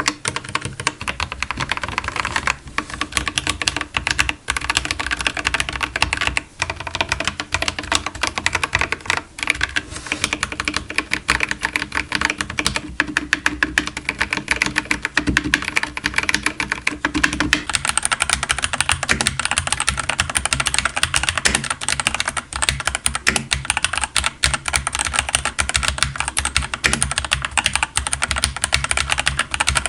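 Mechanical keyboard with factory-lubed Gateron Cap Teal switches (Dark Project KD87A) being typed on fast and continuously, a dense run of key clicks. About two-thirds of the way through, the clatter turns brighter and loses its low body.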